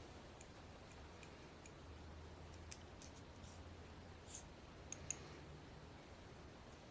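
Faint, scattered light clicks and ticks of small metal padlock parts being handled during reassembly, the two sharpest about five seconds in.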